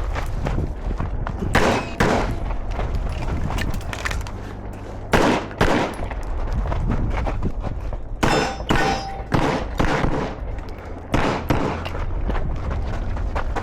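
Gunshots fired in quick pairs and small groups during a timed course of fire, with gaps of two to three seconds between groups, over a steady low rumble.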